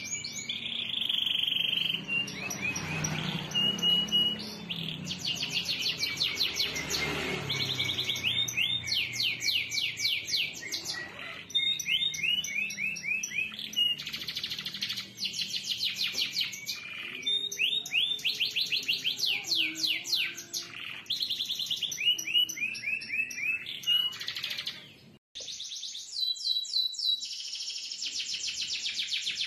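Domestic canary singing a long song of rapid rolls and trills, the notes repeating many times a second. The song breaks off for a moment about 25 seconds in, and then another canary's song of fast trills follows.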